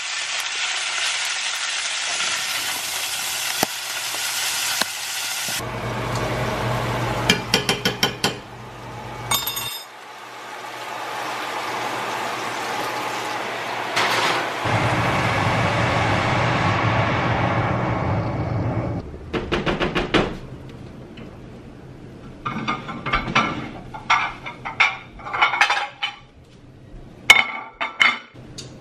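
Steak sizzling in a hot skillet, a steady hiss with a low hum joining in after a few seconds. In the last third come a series of clinks and knocks of pans and plates.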